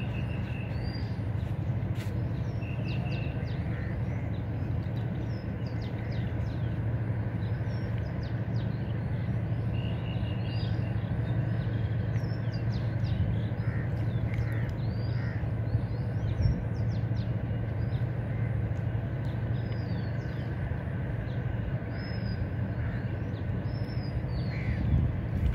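Birds chirping and calling again and again, short high notes scattered throughout, over a steady low hum.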